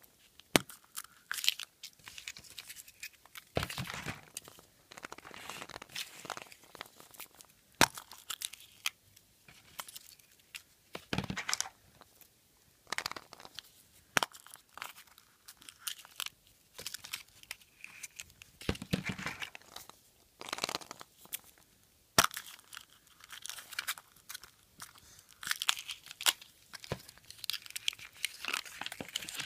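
Thin foil wrapper of a Kinder Surprise chocolate egg being peeled off by hand, crinkling and tearing in irregular bursts, with scattered sharp clicks.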